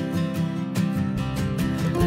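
Instrumental background music led by a strummed acoustic guitar, with a steady beat.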